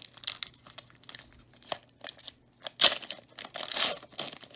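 A trading-card pack wrapper crinkling and tearing as it is opened, in irregular rustles with a sharp, loud rip about three seconds in.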